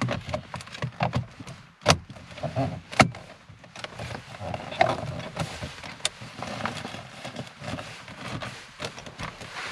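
Plastic gear-lever surround trim on a Ford Mondeo Mk4 centre console being worked into place by hand. Scattered plastic clicks and rubbing, with two sharper snaps about two and three seconds in.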